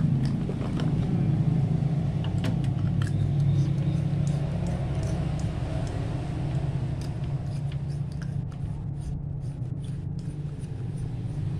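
A steady low rumble, with scattered light clicks and cardboard rustling as plastic LED bulbs are taken out of their box and screwed into the sockets of a power strip.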